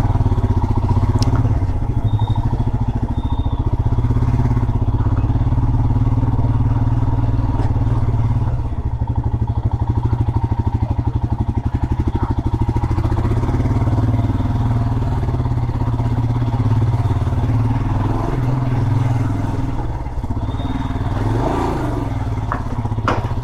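Motorcycle engine running steadily while the bike is ridden.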